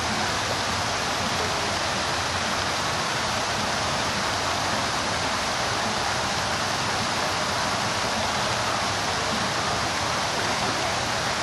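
Water from Chicago's Buckingham Fountain, its jets falling and splashing into the basin: a steady rush of water.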